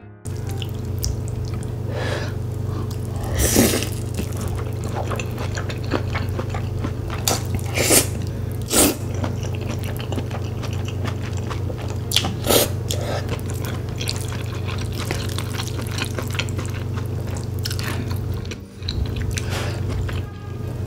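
Eating sounds of slurping and chewing spicy glass noodles (dangmyeon), with a handful of louder slurps, over a steady low hum.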